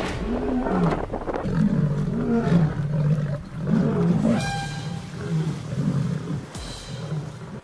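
Lions growling: a steady run of deep growls, each rising and falling in pitch.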